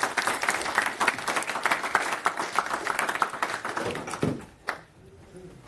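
Audience applauding, fading out about four seconds in, then a single thump.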